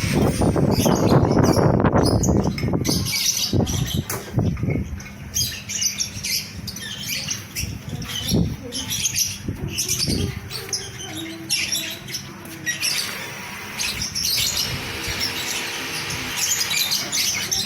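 A flock of lovebirds chirping continuously, many short high calls overlapping, with a louder noise in the first three seconds.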